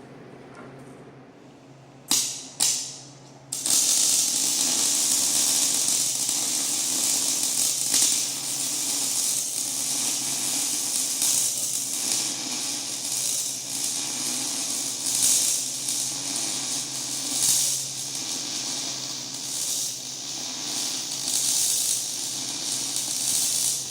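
Stick welding arc: the rod is struck twice in quick succession, then the arc holds in a steady, uneven crackle and sizzle while a bead is laid. The welding machine hums low underneath throughout.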